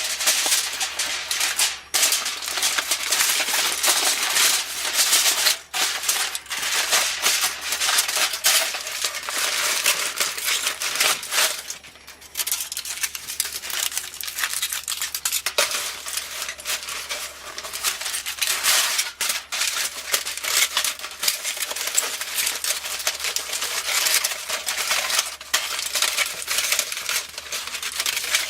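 Aluminium foil crinkling and crackling as it is crumpled and stuffed into a plastic cup by hand, with a few brief pauses.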